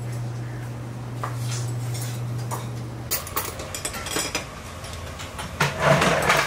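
Restaurant dining-room sound: a steady low hum for the first three seconds, then dishes and cutlery clinking on a table, busier and louder near the end.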